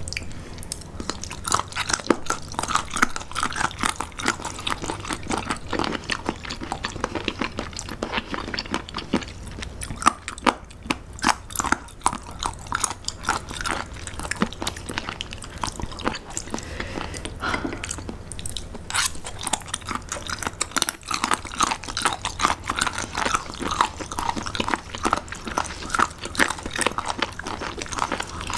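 Two people chewing firm, crunchy raw seafood close to the microphone: a steady run of crisp crunches and wet mouth clicks.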